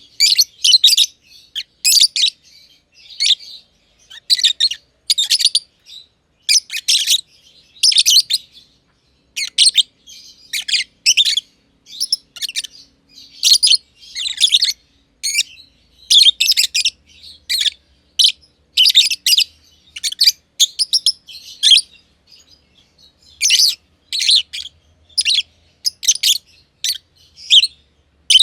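Black-masked lovebirds (personata) chirping: short, shrill, high-pitched calls in quick runs, repeated every second or so with brief pauses.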